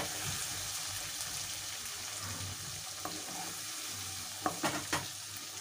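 Onion, tomato and cashew masala sizzling in a hot non-stick kadhai as a spatula scrapes it out of the pan, with a few sharper scrapes of the spatula against the pan about three and five seconds in.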